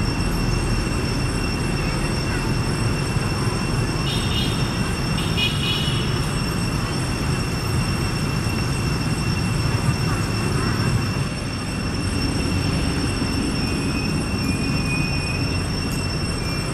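Steady outdoor background noise: a low rumble with several constant high-pitched tones over it, and a brief chirping about four to six seconds in.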